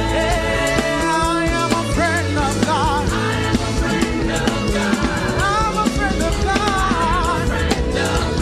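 Live gospel worship band playing, with drums and a lead singer's wordless ad-libs in wavering, vibrato-laden runs over the music.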